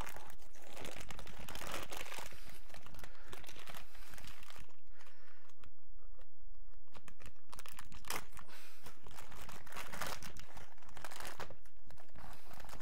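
Packaging being torn open and crinkled by hand, a run of rustling tears with a lull about halfway through.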